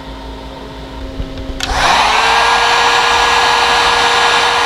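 A heat gun switches on about one and a half seconds in. Its fan spins up with a quick rising whine, then it blows steadily and loudly to shrink heat-shrink tubing over a diode lead. Before that there is a quieter steady hum.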